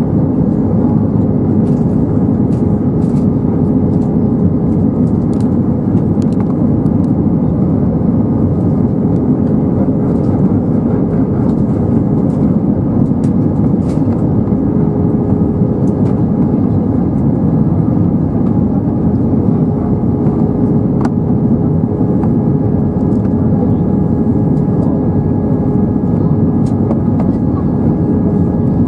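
Steady cabin noise of an Airbus A320-232 in flight on approach with flaps extended: a low rumble of airflow and its IAE V2500 turbofan engines, with a faint steady hum and a few light ticks of cabin rattle.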